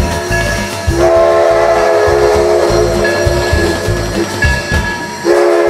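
Train horn sounding in long blasts: one starts about a second in and holds for about two and a half seconds, and another starts near the end. Under the horn is background music with a steady beat.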